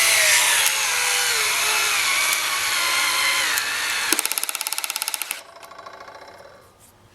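Cordless screwdriver's motor whining as it drives a screw, its pitch sagging slowly under load. About four seconds in it gives way to rapid, even clicking that fades out, as the screw stops going in.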